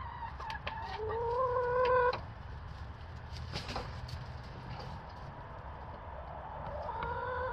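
Domestic hens clucking, with a drawn-out call about a second in and a shorter one near the end, and light clicks and rustles between.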